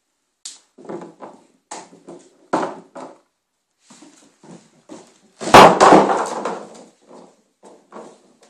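A chewing bone knocking and clattering on a wooden plank floor as a puppy plays with it: a string of irregular short knocks, with one loud thud and clatter about halfway through.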